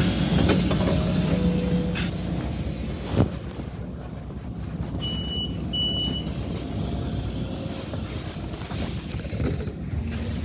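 City bus engine running with a steady low rumble, a sharp knock about three seconds in, and two short high beeps a little later.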